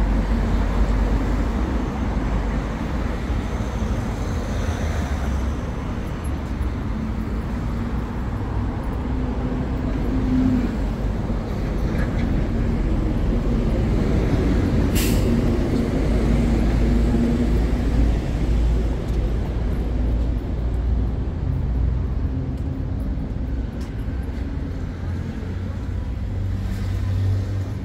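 City street traffic: engines of passing cars and buses with a steady low rumble and road noise, and a single sharp click about halfway through.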